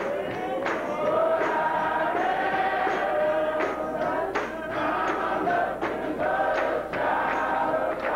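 Men's gospel choir singing together, with sharp percussive hits now and then.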